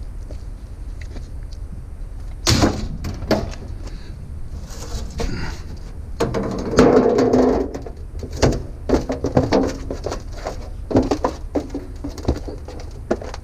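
A small scooter being picked up and handled: a series of clanks and knocks, with a longer scraping rattle about six to eight seconds in, over a steady low rumble.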